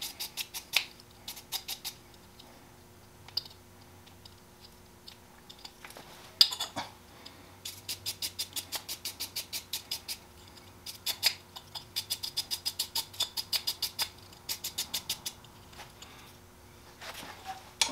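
A brass wire brush scrubbing a brass air fitting, in quick runs of scraping strokes about five a second with short pauses between runs. There is a single sharp knock about six seconds in.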